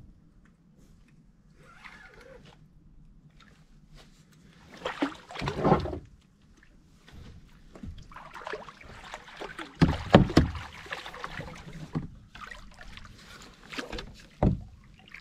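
Water splashing and sloshing with knocks against the hull of a plastic fishing kayak as a hooked channel catfish is brought in and landed. The sounds come in irregular bursts, louder about five seconds in and again around ten seconds, with a sharp knock near the end.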